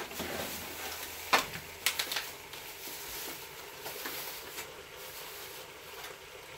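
Clear plastic bag crinkling and rustling as it is handled, with a sharp crackle about a second and a half in and a quick cluster of crackles just after.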